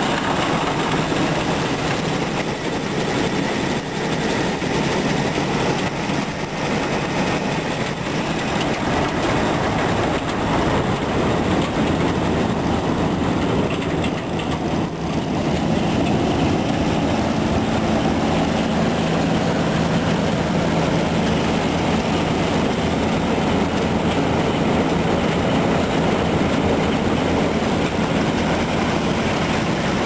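1960 Massey Ferguson Super 92 combine running, its Dodge 265 flathead straight-six engine humming steadily under the clatter of its belts, pulleys and shaker mechanism. The engine hum gets a little stronger about halfway through.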